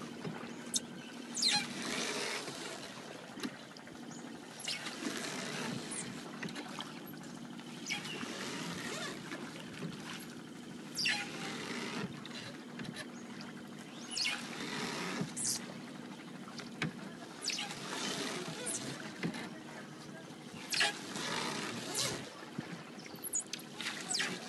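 Oars dipping and pulling through river water as a rowboat is rowed, a splashy stroke every couple of seconds with water trickling off the blades, and now and then a short knock of an oar.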